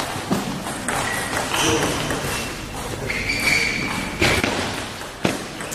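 Table tennis rally: a celluloid ball clicking off the rackets and bouncing on the table, a few sharp ticks spaced unevenly, with short high squeaks of sports shoes on the hall floor in between.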